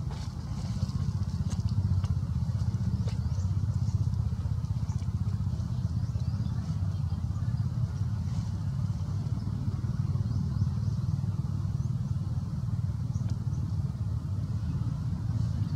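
A steady low rumble with a fast, fine pulsing, and a few faint ticks higher up.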